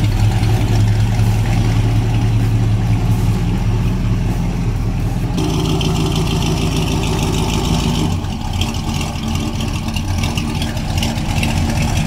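Late-1960s Chevrolet C10 pickup's engine running with a steady, even rumble. Its sound changes abruptly about five seconds in, becoming more hissy, and shifts again a few seconds later.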